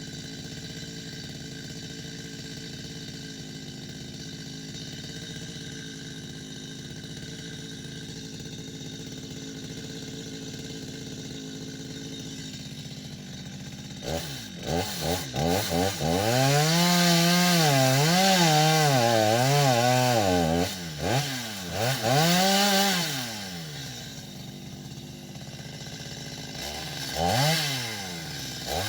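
Chainsaw engine idling steadily, then given short blips of throttle and revved hard about halfway through, its pitch rising and dipping repeatedly at full speed. It drops back to idle a few seconds before the end, then revs again.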